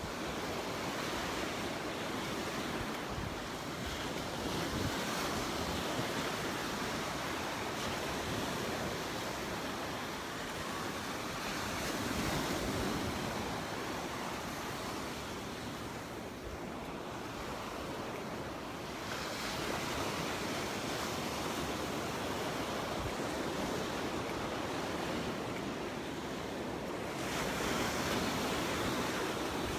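Gulf of Mexico surf breaking and washing up the beach, swelling and fading every several seconds, with wind buffeting the microphone.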